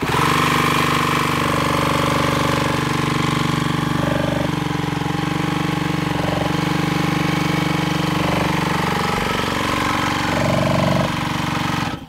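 Cordless drill spinning a Yamaha KT100 100cc two-stroke kart engine over by its crankshaft nut, a steady mechanical drone that cuts off abruptly at the end. The engine turns over without firing: its ignition is giving no spark.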